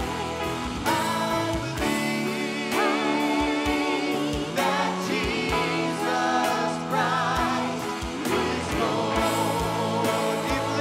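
A live worship band playing a song: voices singing with vibrato over electric guitar, keyboard and a steady drum beat.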